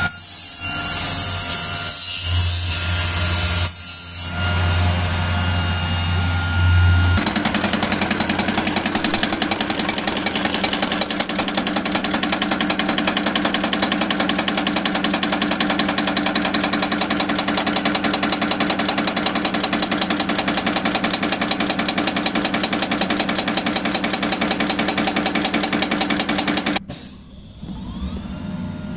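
Aluminum-profile milling machine cutting and slotting a profile. It opens with a high hiss over a low hum. About seven seconds in, a steady, fast rattle of machining takes over, and it drops away briefly near the end.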